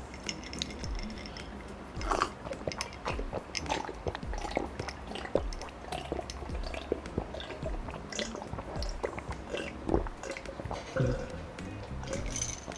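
A person gulping water from a glass mug in long drinks: a run of small swallowing and mouth clicks.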